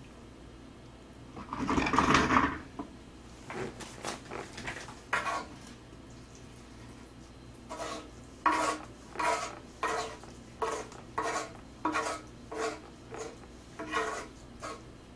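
Wooden spatula scraping fried rice across a black griddle pan. One longer, louder scrape comes about two seconds in, and in the second half a run of short strokes follows at about two a second.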